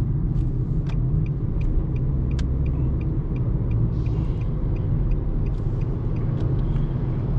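Steady engine and road rumble inside a moving Nissan sedan's cabin, with a turn-signal indicator ticking about two to three times a second in two runs, as the car changes lane to overtake.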